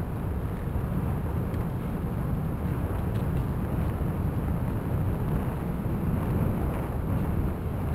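Steady low rumble of wind buffeting the microphone while riding a bicycle, mixed with the tyres rolling over a crushed-stone trail surface, with a few faint light ticks.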